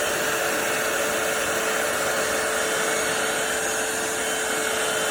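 Cordless stick vacuum cleaner running steadily on its heavy-suction setting: a constant rush of airflow with a steady motor tone.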